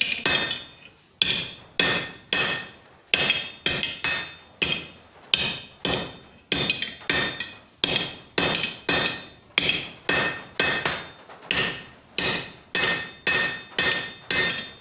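Hand hammer striking a hot half-inch round steel bar on an anvil to straighten a bend. It lands about two blows a second, with a brief metallic ring after each.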